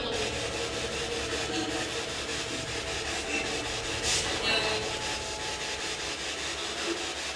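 Steady choppy radio static from a spirit box sweeping through stations, with a brief sharper burst of hiss about four seconds in.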